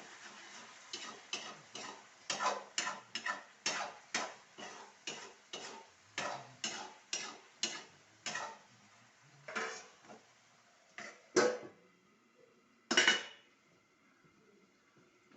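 A metal spoon or ladle scraping and stirring in a metal cooking pot in steady strokes, about two to three a second. Near the end come a few slower, louder clanks against the pot.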